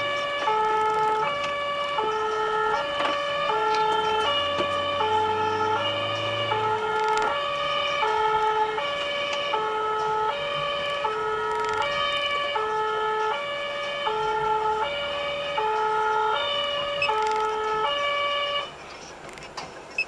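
Two-tone emergency siren of a fire brigade officer's car on an emergency run, switching evenly between a lower and a higher note about every two-thirds of a second, heard from inside the moving car. It cuts off near the end.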